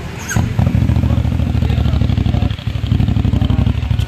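CFMOTO 450SR's 450cc 270-degree parallel-twin engine revved hard on its stock exhaust. It jumps up from idle about a third of a second in, dips briefly past the halfway point, then is revved up again.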